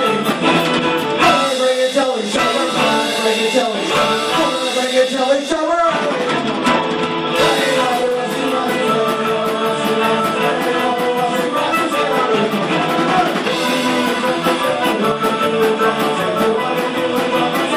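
Live rock band playing: electric guitars, bass guitar and drums, with a voice singing.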